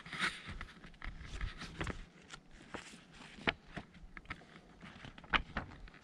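Footsteps of a person walking: irregular steps with sharp scuffs and low thuds every half second to a second, the strongest about three and a half and five and a half seconds in.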